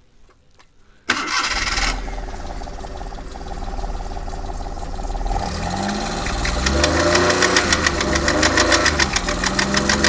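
Maruti 800's three-cylinder petrol engine cranked and catching about a second in, then running with a rapid, rhythmic ticking belt noise that grows louder from about five seconds in. The noise comes from a loose alternator belt.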